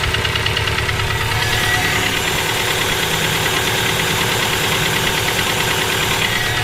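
Subaru EJ257 turbocharged 2.5-litre flat-four engine running with a fast, regular knocking. The owner wonders whether it is rod knock from a spun bearing or valve lash that needs adjusting.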